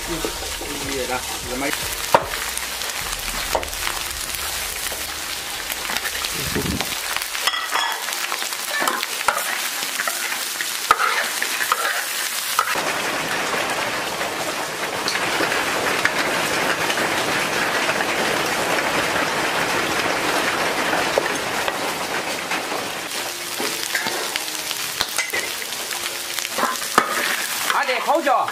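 Food sizzling in hot oil while a spatula stirs and scrapes it, with scattered sharp clicks of metal on the pan. The sizzle grows denser and louder from about halfway through, then eases near the end.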